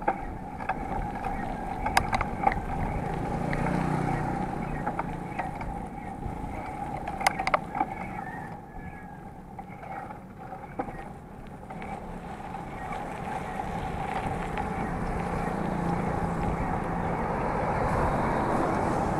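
Muffled wind and road noise on an action camera riding on a mountain bike along a wet road, with a few sharp knocks about two seconds in and again around seven seconds.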